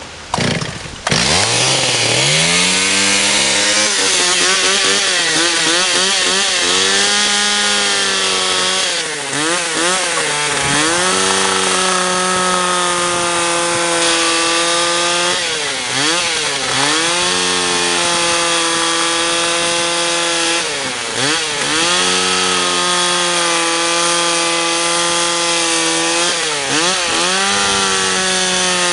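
Two-stroke chainsaw catching about a second in, its pitch climbing as it revs up, then running hard while cutting wood, the engine speed dipping and recovering about four times as the chain bites.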